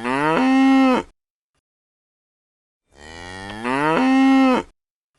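Cow mooing twice, the same call repeated: each moo rises in pitch and then holds a steady tone for about a second before stopping.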